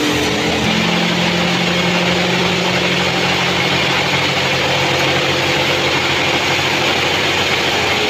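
Band sawmill cutting lengthwise through a large albasia (sengon) log, the blade and machine running with a steady hum and hiss; the hum firms up about a second in.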